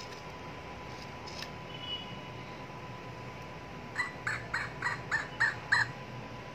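Interactive finger monkey toy chattering: a quick run of about seven short, high chirps about four seconds in.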